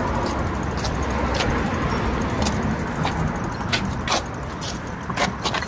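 Steady low rumble of a bicycle rolling along a sidewalk, with scattered sharp clicks and rattles from about two seconds in.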